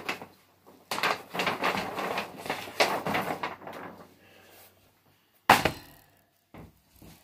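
Rustling and clattering as things are rummaged through and moved about, then a single sharp knock about five and a half seconds in, followed by a few faint clicks.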